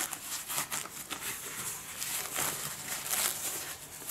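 Crinkling and rustling of paper and plastic film as a roll of toilet paper is handled and unrolled on top of its plastic-wrapped multipack, in a few irregular strokes.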